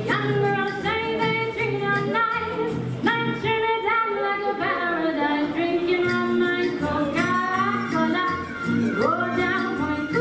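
Live vocal group singing a 1940s-style song through a PA, women's voices leading, over an accompaniment with a steady beat.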